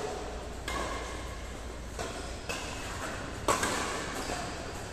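Badminton rackets striking a shuttlecock during a doubles rally: three sharp hits about a second and a half apart, the third the loudest, each ringing briefly in a large hall.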